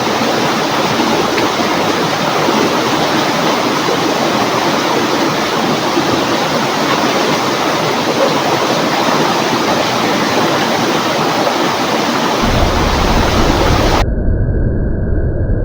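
River water rushing steadily, a loud, even wash of flowing water. Near the end the sound suddenly turns muffled and low, with the high end cut off.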